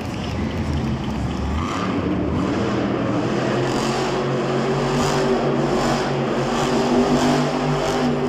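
Monster truck engine revving as the truck drives and turns on the arena floor, settling into a steady high rev from about three seconds in.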